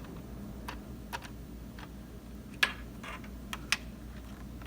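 A handful of small, scattered clicks from a laptop docking-station cable lock being handled as its key is turned to the 0 position so the cable end can be plugged in; the sharpest click comes about two and a half seconds in.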